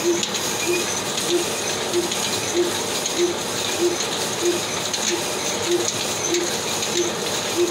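Old Ruston Hornsby diesel engine running slowly with an even beat, about one and a half beats a second, over the steady whirring hiss of the belt-driven cotton painja machine it drives.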